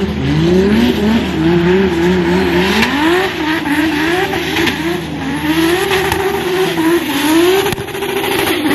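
Two drift cars' engines revving up and down again and again as they slide through a wet corner in tandem, the pitch climbing and falling about once a second.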